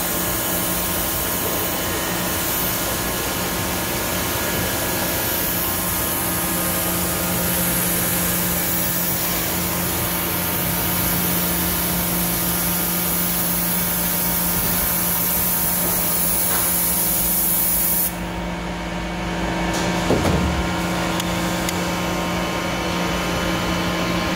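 Large injection molding machine and its part-removal robot running: a steady machine hum with several held tones under a loud hiss. The hiss cuts off suddenly about three quarters of the way through, and a brief thump follows a couple of seconds later.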